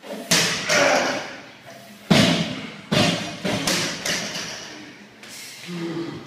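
Loaded barbell with bumper plates dropped from overhead onto a wooden lifting platform: several heavy thuds as the plates land and bounce, the loudest near the start and about two and three seconds in.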